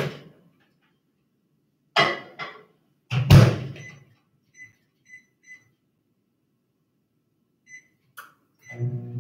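Microwave oven being loaded and started: knocks and a heavy thump as the door is shut, then a series of short keypad beeps as it is set to five minutes on high, and near the end the oven starts running with a steady hum.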